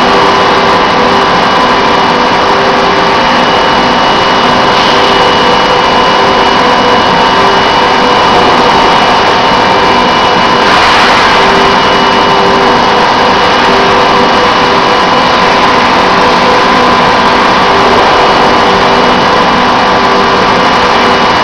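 Automated factory handling equipment (an overhead gantry lifter and roller conveyors) running: a loud, even machine hum with a few steady tones and some lower tones that keep cutting in and out.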